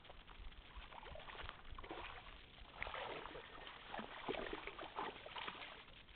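Hooked fish splashing at the water's surface as it is drawn in to the bank: a series of small irregular splashes, louder in the second half.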